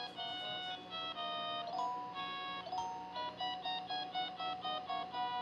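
RAZ musical Christmas TV diorama playing an electronic holiday tune: a simple melody of quick, beeping notes.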